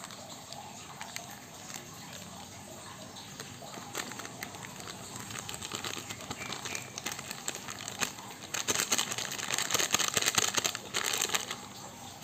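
Crinkling of a small plastic sachet being handled, opened and shaken out to pour powder into a bowl of liquid. It gets denser and louder for a few seconds near the end.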